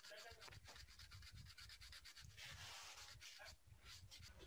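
Near silence: faint room tone with a few soft scratching clicks.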